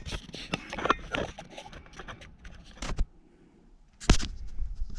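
Scattered clicks, taps and scrapes of metal parts being handled on a tractor engine, then a short lull about three seconds in and a loud knock about a second later.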